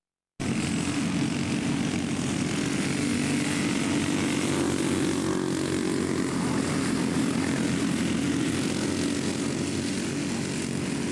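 Several dirt racing karts' small engines running at speed around the track, a steady drone that cuts in abruptly about half a second in.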